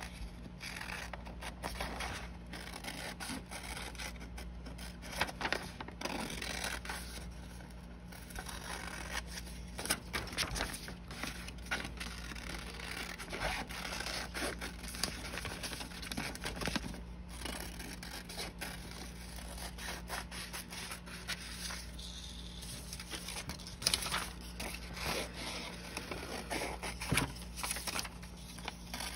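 Scissors snipping through a sheet of paper in short, irregular cuts, with the paper rustling as it is turned and handled.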